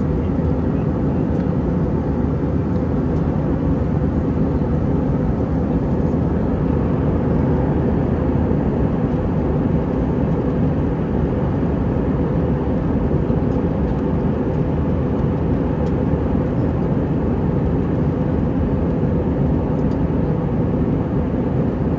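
Steady cabin noise inside an Airbus A319: a low, even rumble from its IAE V2500 jet engines and the rushing air, heard from a window seat.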